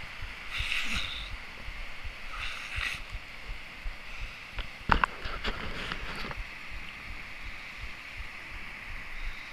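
Rough sea breaking and washing over rocks at the shoreline: a continuous surf hiss with a low rumble, swelling in surges about a second in and near three seconds, with a sharper wave slap about five seconds in.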